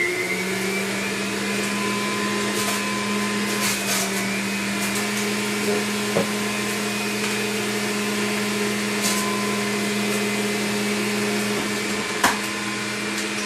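Electric juicer's motor running steadily at speed with a high whine as spinach is pushed down its feed chute. A few sharp knocks come through, the loudest near the end.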